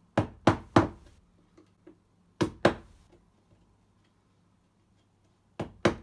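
Mallet striking a wood chisel into a painted wooden door frame: seven sharp knocks, three quick ones, then two a second and a half later, then two more near the end. The chisel is marking a shallow lip around the latch keep plate recess, the first step in deepening it by about 2 mm.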